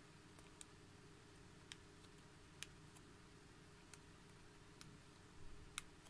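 Faint, irregular clicks of buttons being pressed on a small RGB LED remote control, about seven presses with the loudest near the end, over quiet room tone.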